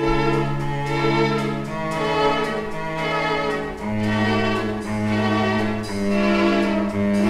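Background music: bowed strings holding long, sustained chords that change every second or two.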